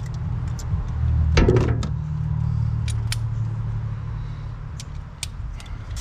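Scattered light metallic clinks of hand tools being picked up and handled, over a steady low rumble.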